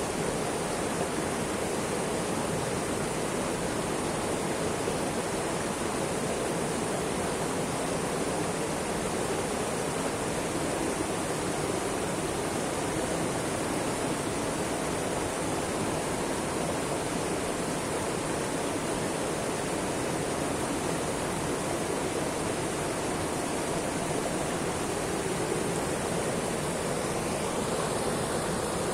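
Mountain river flowing, a steady even rush of water with no breaks or changes.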